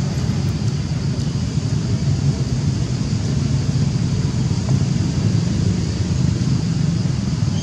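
Wind rumbling on the microphone: a steady, irregularly flickering low rumble with a faint hiss above it and no distinct events.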